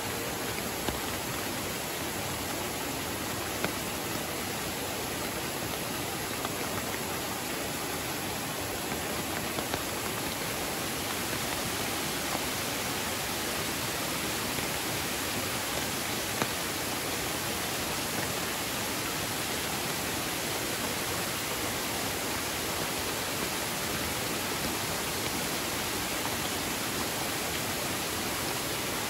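Waterfall pouring into a muddy river swollen near flood by heavy rain: a steady, even rush of falling and churning water.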